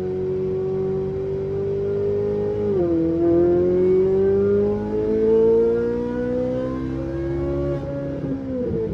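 Ferrari engine running hard on a race track, its note holding steady, dipping sharply about three seconds in, then climbing as the car accelerates, with another steep dip near the end.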